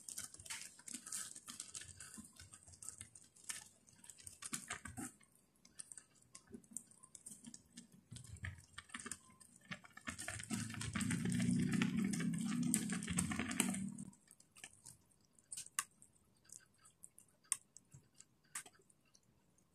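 Chopsticks clicking and scraping against a pot while stirring moringa leaves into noodles in broth, with small wet sounds from the leaves and liquid. A louder, deeper stretch of sound lasts a few seconds around the middle, and the clicks turn sparse and sharper near the end.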